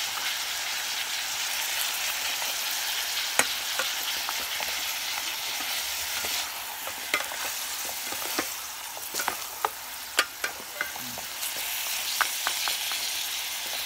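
Pork pieces sizzling as they fry with onion and garlic in an aluminium rice-cooker pot. A plastic rice paddle stirs them and clicks sharply against the pot about a dozen times, mostly in the second half.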